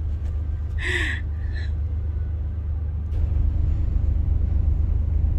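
Steady low rumble of a ship's engines and machinery heard inside a passenger ferry, growing louder about three seconds in, with a short high-pitched sound about a second in.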